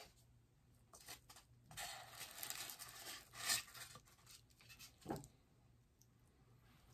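Packaging being torn open and handled by hand. A couple of light clicks come first, then about two seconds of tearing and rustling that ends in a sharp rip, and a short duller rustle about five seconds in.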